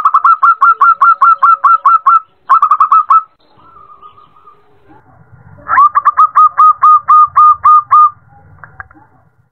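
Female zebra dove calling to a male: rapid runs of short, falling coo notes, about five a second, in three bouts with a gap of a couple of seconds before the last.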